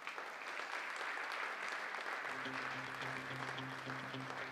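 Audience applauding. A low steady tone comes in about halfway through.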